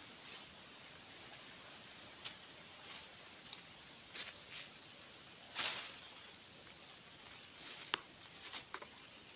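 Leaves and brush rustling in short, scattered bursts as the camera is pushed through foliage, the loudest a little past halfway, with a few sharper snaps toward the end.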